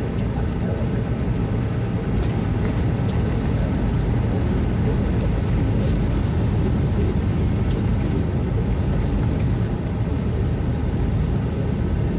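Steady engine and road rumble inside a moving semi-truck's cab, heavy in the low end and even throughout.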